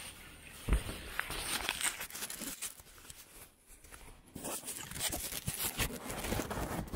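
Kayak paddle strokes close to the microphone: water splashing and dripping in crackly bursts, with a quieter spell about three to four seconds in. A low thump comes just under a second in.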